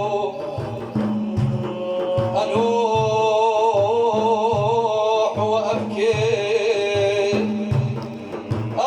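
Male religious praise singing (madih): long held, wavering melismatic notes between lines of verse, over a steady hand-drum beat of about two strokes a second.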